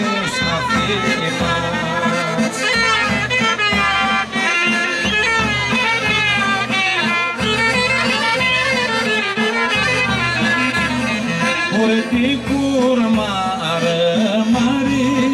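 Greek folk dance music played over loudspeakers: an ornamented lead melody over a steady beat, with some singing.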